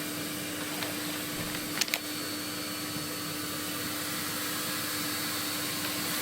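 Vacuum cleaner running steadily with a constant hum, and a short sharp knock about two seconds in.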